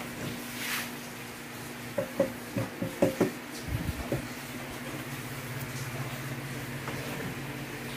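Black metal motorcycle top case being handled and tilted: a quick cluster of knocks and clunks, some with a short metallic ring, about two seconds in, over a steady low hum.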